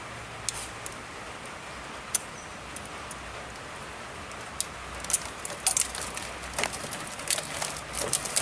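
Small clicks and scratchy rustling as a utility knife cuts open the tape on an engine-bay wiring harness and the tape is pulled back from the wires. The sounds are sparse at first and come thicker in the second half.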